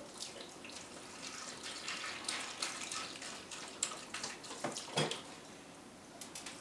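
Water splashing with irregular small clicks and two louder knocks near the end.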